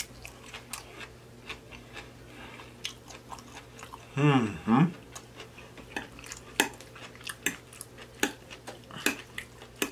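Close-miked chewing of a mouthful of soft food, with wet mouth clicks and lip smacks throughout. About four seconds in, a short closed-mouth hum.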